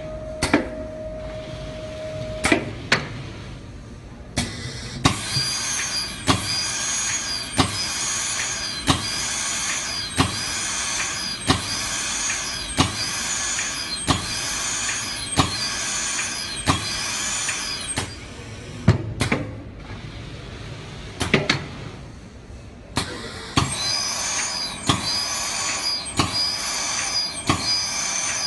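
Vacuum blood collection tube assembly machine running: a steady mechanical hiss and whine with sharp clacks about every 1.3 seconds. The running noise drops away for a few seconds about two-thirds of the way through, leaving a few scattered knocks, then starts again.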